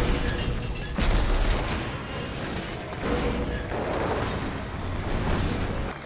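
Movie sound design of a train of tank cars derailing: sudden heavy crashes at the start and again about a second in, followed by a long low rumble as the cars tumble and slide, with a music score underneath.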